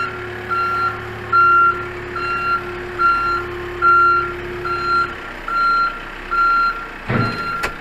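Backhoe's reverse-alarm beeper sounding a steady, high beep a little over once a second, over the low hum of the backhoe's engine, which cuts off about five seconds in while the beeping goes on. A short thump comes near the end.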